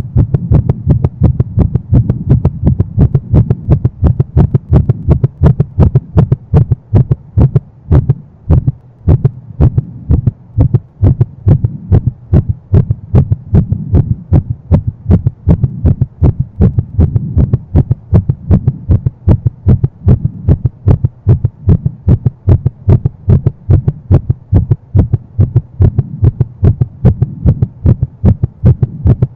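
Rapid heartbeat, as after sprinting: a fast, even run of deep, muffled thumps, with a brief stumble in the rhythm about eight to ten seconds in.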